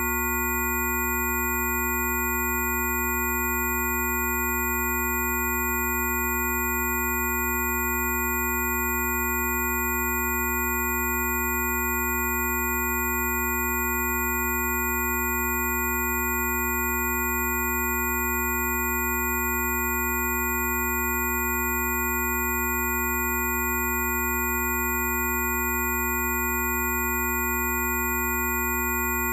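Steady electronic tones: several pure tones, from a low hum to high whistles, held together without any change or break.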